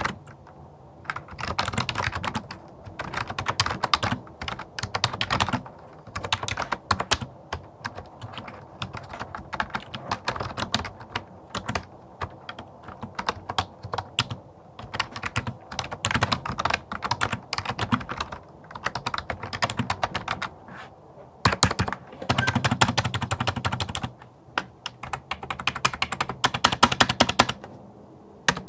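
Typing on a Logitech MK520 wireless keyboard, its plastic membrane keys clicking in quick runs with short pauses, close to the microphone.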